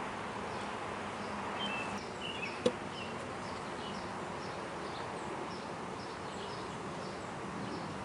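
Honey bees buzzing steadily over an open hive, with a single sharp knock about two and a half seconds in as the wooden frames are handled.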